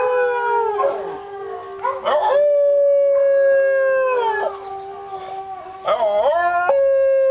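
A Tibetan terrier howling in long held notes, each dropping in pitch as it ends: one howl fades out about a second in, another runs from about two to four seconds, and a wavering howl near the end slides into a final long one. A lower steady tone sounds underneath for most of the first part.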